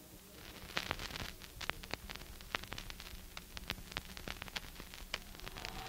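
Faint recording noise: irregular crackling clicks and pops over a steady low electrical hum and light hiss, with no speech or music.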